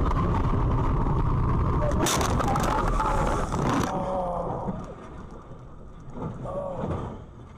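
Dashcam car driving at speed with steady road noise, then about two seconds in a crash: a harsh crunching, scraping noise for about two seconds. It ends abruptly, and after that it is quieter with a few short cries from a person's voice.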